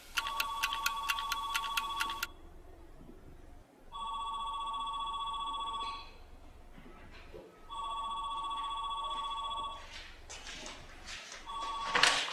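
Electronic telephone ringing: a warbling two-tone trill in bursts of about two seconds, three full rings, with a short fourth ring near the end that cuts off when it is answered.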